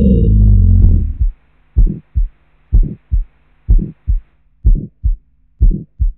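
Heartbeat sound effect: a slow double thump, lub-dub, about once a second over a faint low hum. It follows a loud low rumble that cuts off about a second in.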